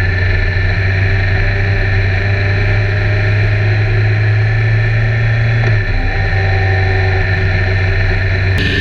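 BMW K1300R's inline-four engine running steadily on the move, its strong low drone dropping away about six seconds in.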